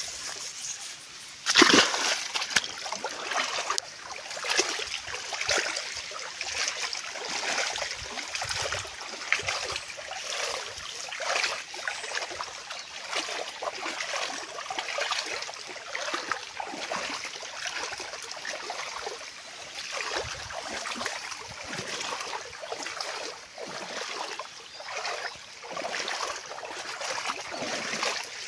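Irrigation water flowing and splashing along a narrow earthen field channel, a continuous crackly rushing with irregular small splashes, and a louder burst about two seconds in.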